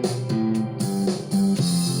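Guitar-led music with a bass line moving from note to note, and no singing.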